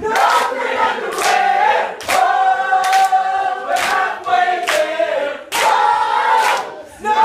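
A group of people singing together, with a sharp accent recurring about once a second.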